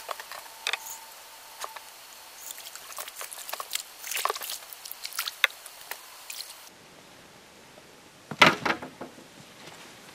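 Scattered clicks and rustles of fishing tackle being handled while a hooked fish is played on the rod, with a brief faint steady tone shortly after the start. A louder burst of clattering comes about eight and a half seconds in.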